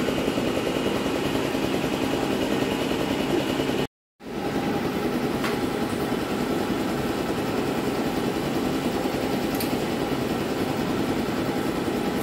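A small engine running steadily, with a fine low pulsing throughout and a couple of faint clicks. The sound cuts out for a moment about four seconds in.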